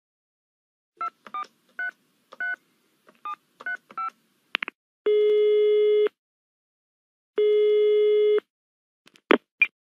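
Telephone call sound effect: about seven quick keypad tones as a number is dialed, then two steady ringing tones of about a second each, ending with a couple of clicks.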